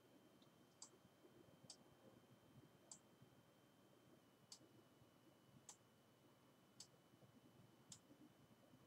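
Faint, sharp single clicks of a computer mouse, about one a second, seven in all, as a document is stepped down the screen. A faint steady high whine runs underneath, dropping slightly in pitch about four seconds in.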